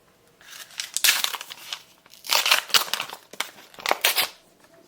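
A trading-card booster pack wrapper being torn open and crinkled in the hands, in three bursts of sharp crackling.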